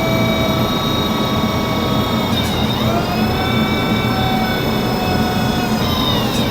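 RC hydraulic excavator's electric pump motor whining steadily as its functions are tested. The pitch sags and shifts about two and a half seconds in and again near the end as the hydraulics take load.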